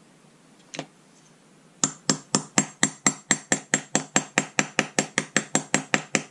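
Hammer tapping a small socket to drive a push-on star clip onto the shaft of a Kenwood Chef mixer part. A single light clink about a second in, then steady metallic taps about four a second, each with a short ring.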